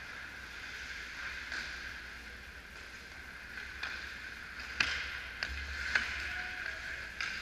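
Indoor ice rink during a hockey game: a steady hum of the arena with a handful of sharp clacks of sticks and puck on the ice, the loudest about five and six seconds in.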